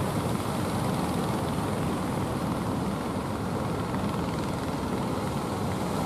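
Steady low drone of a wooden fishing boat's engine under way, blended with the rush of surf.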